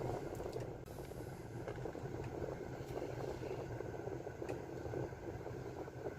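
A car running, heard from inside the cabin as a low, steady rumble of engine and road noise.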